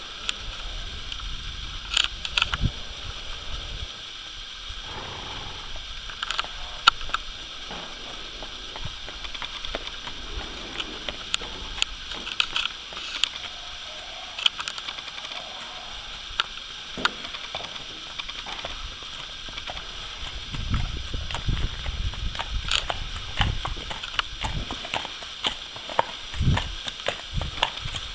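Hoofbeats of a ridden grey mare on a hard lane: scattered clip-clop that comes closer, with the hoofbeats growing louder and more frequent in the last several seconds.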